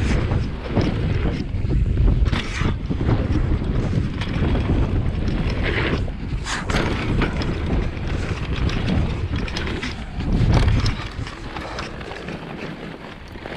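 Wind buffeting an action camera's microphone over the low rumble of mountain bike tyres rolling on a dirt trail, with a few sharp knocks as the bike hits bumps and lands. It turns quieter after about eleven seconds.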